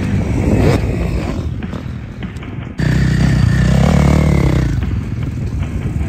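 Dirt bike engine revving and running, suddenly louder just under three seconds in.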